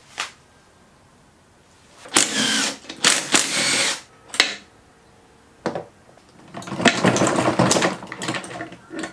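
Cordless drill turning a socket on the bolts inside a Honda B-series manual transmission case, running in short bursts about two and three seconds in. A shorter burst follows, then a longer noisy burst about seven seconds in.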